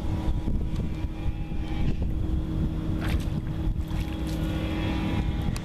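A boat motor hums steadily under wind buffeting the microphone. A few short splashes come about three to four seconds in, as a hooked crappie thrashes at the water's surface.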